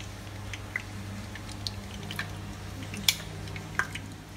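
Cooking oil heating in an electric pressure cooker's inner pot, giving scattered small pops and crackles over a steady low hum, with two sharper clicks about three seconds in.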